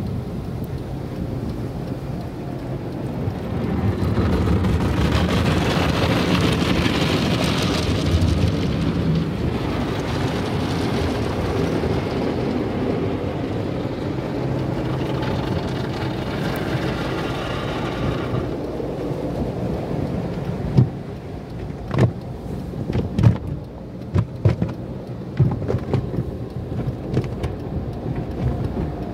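Water spray and the cloth brushes of a Belanger tunnel car wash scrubbing over a car's windshield and body, heard from inside the cabin. Roughly two-thirds of the way through, the steady wash gives way to a string of irregular loud slaps and thumps of cloth hitting the car.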